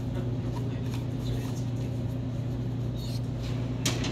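Steady low background hum with faint paper rustling and small handling ticks as a toilet paper tube is wrapped in white paper. A single sharp click comes near the end.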